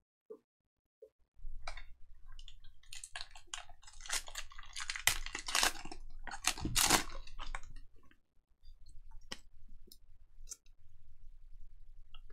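Foil trading-card pack crinkling and tearing as it is ripped open by hand. The crinkling starts about a second and a half in, is loudest in the middle, and gives way near the end to light clicks of the cards being handled.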